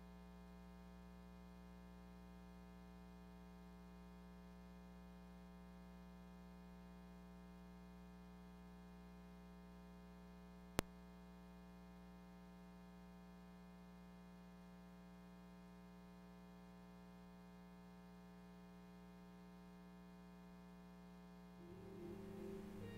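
Near silence: a faint steady hum with a single sharp click about eleven seconds in. Faint music begins near the end.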